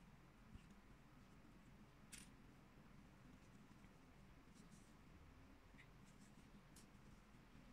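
Near silence: faint room hum with a few soft, brief clicks, the sharpest about two seconds in.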